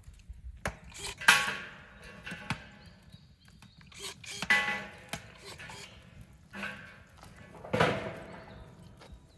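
Hard knocks on metal, each leaving a short metallic ring. Three loud strikes come about three seconds apart, with lighter knocks between them.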